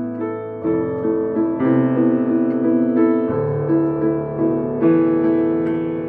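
Background piano music: slow held chords over a repeating note pattern, with the bass note changing every few seconds.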